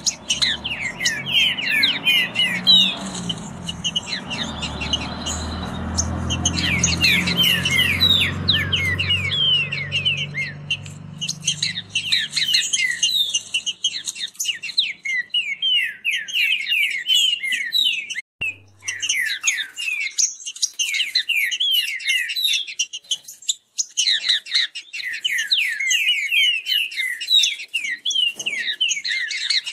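Green-winged saltators (trinca-ferro) singing a fast song of quick down-slurred notes that pour out almost without pause, with a brief break a little past halfway. A low rumble sits under the singing for the first dozen seconds, then stops.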